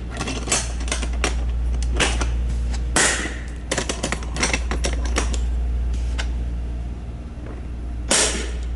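Irregular clicks and knocks of a plastic rolling toolbox and the cables inside it being handled, densest in the middle with a louder knock near the end, over a steady low hum.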